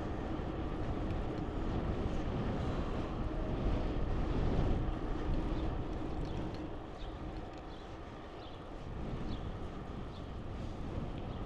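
Steady low rumble of city traffic mixed with wind on the microphone while riding a bicycle along a street, loudest about four to five seconds in and dipping for a couple of seconds past the middle.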